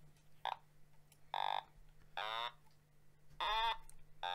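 Otamatone, a handheld electronic synthesizer played by pressing a ribbon along its stem, sounding a series of short notes about once a second, some sliding slightly in pitch.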